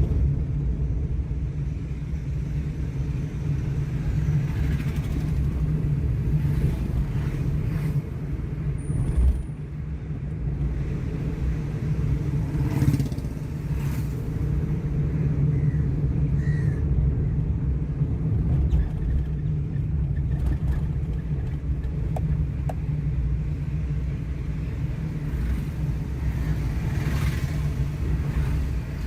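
Car interior noise while driving: a steady low rumble of road and engine heard from inside the cabin, with a few faint ticks and rattles.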